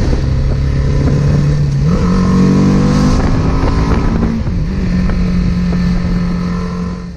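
BMW G310R's single-cylinder engine running while riding, its revs rising about two seconds in and then holding steady.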